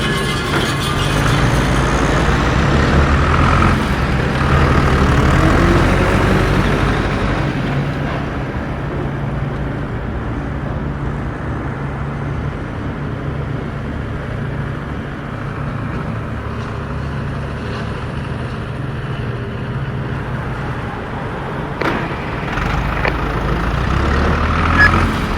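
Off-road 4x4 engine running and revving as it works over rough ground. It is louder for the first several seconds, settles to a steadier drone in the middle, then revs up again near the end.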